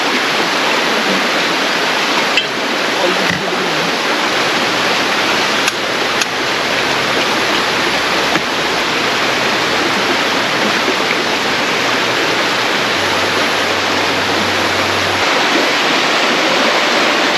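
River water rushing steadily over its bed, a constant even rush, with a few faint clicks about two and a half and six seconds in.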